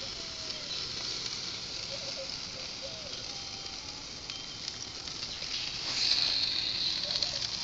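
Burger patties sizzling on a charcoal grill, their grease dripping onto the hot coals and flaring. The hiss grows louder about six seconds in.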